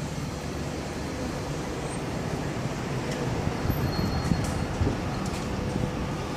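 City street ambience: a steady low rumble with a faint steady hum, and a few soft knocks in the second half.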